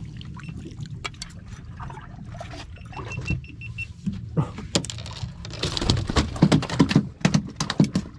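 Netted fish brought aboard and flopping on a fiberglass boat deck, with the landing net and jig clattering: a run of sharp knocks and slaps, densest and loudest in the second half, over a steady low rumble.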